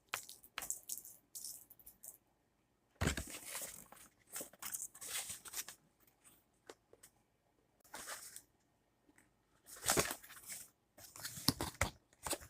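Toy train packaging being opened and handled: irregular bursts of tearing and crinkling, with quiet gaps between them.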